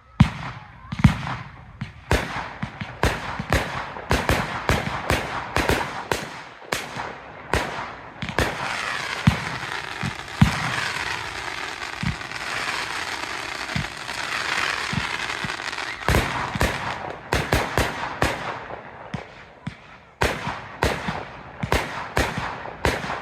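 Display fireworks going off in quick succession: sharp bangs a few per second, thickening into a dense continuous crackle for several seconds in the middle, then separate bangs again.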